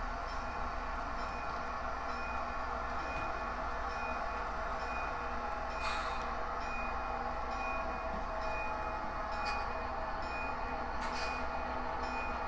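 HO scale model locomotive running on the layout during a switching move: a steady drone with a few sharp clicks about six, nine and a half and eleven seconds in.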